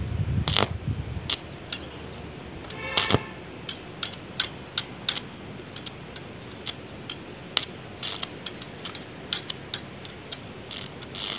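Irregular sharp crackling snaps from a welding rod, fed by a homemade salt-water welder on mains current, as it is touched and dragged against a rusty steel grate, striking sparks.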